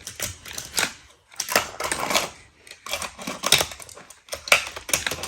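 Irregular clicking and clattering of plastic toy cars and track pieces of a Hot Wheels play set being handled and run, in quick clusters of small hard knocks.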